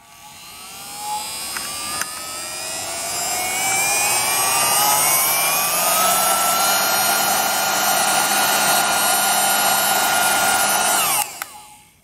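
Cordless handheld mini vacuum cleaner running: its motor whine climbs steadily in pitch for about six seconds as it spins up, then holds steady over a rushing of air. About eleven seconds in it is switched off and the whine falls away.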